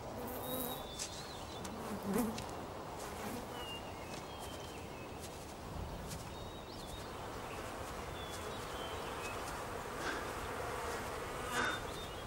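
Bees buzzing steadily, with short bird chirps now and then.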